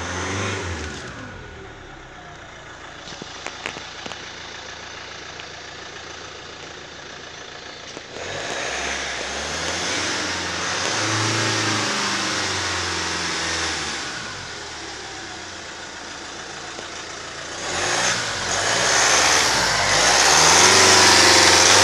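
Hyundai Sonata 2.0 CRDi four-cylinder diesel engine running and being revved up and down several times. It is muffled inside the cabin at first, with a few clicks about four seconds in, then heard openly at the exhaust and, loudest near the end, under the open bonnet. This is a wrecker's engine test, and the engine is rated as tested good.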